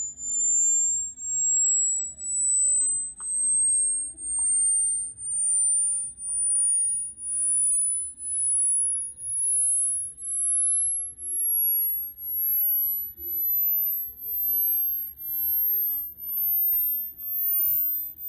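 Very high pure sine test tone climbing slowly and steadily in pitch, pulsing about once a second: a hearing-age test sweep toward the upper limit of human hearing.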